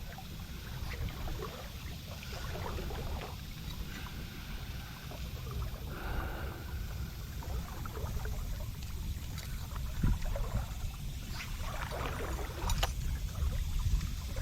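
Water trickling and lapping around a kayak anchored in river current, with a steady low wind rumble on the microphone and a few faint knocks.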